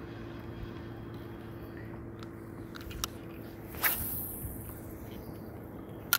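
A cast with a spinning rod and reel: one short, loud swish about four seconds in as the rod whips forward and line hisses off the spool, then a sharp click near the end as the bail snaps shut and reeling begins. A faint steady hum runs underneath.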